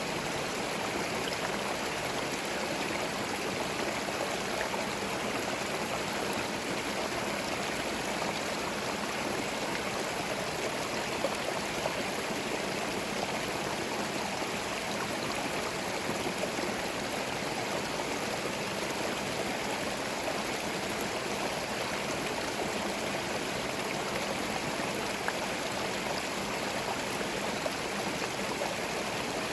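Small forest stream running steadily over stones, a continuous babble of flowing water with no change in level.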